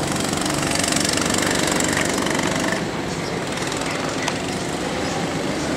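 Go-kart engines running steadily as the karts lap the circuit, a continuous rapid small-engine buzz.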